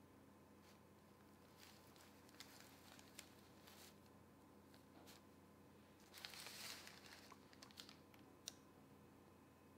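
Near silence: room tone with a faint steady hum, broken by faint rustles and light clicks of a plastic piping bag being squeezed and hands moving on parchment paper, with a brief louder rustle about six seconds in.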